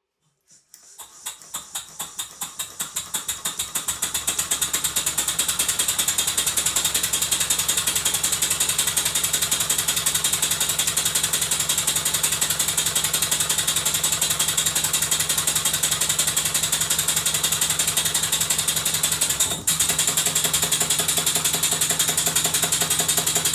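Stuart 5A model steam engine starting up and running: its beats quicken over the first few seconds into a fast, steady, clattering rhythm. About twenty seconds in it briefly dips, then runs on as its reversing gear is worked by hand; the engine runs better in one direction than the other.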